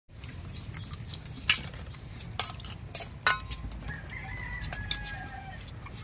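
A rooster crowing, one held call about four seconds in, with a few sharp clicks and knocks before it.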